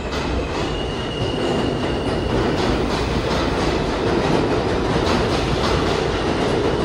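New York City R160 subway train running past along the platform: a steady rumble and rattle of wheels on rail. About a second in, a high, thin whine sounds for about a second and a half.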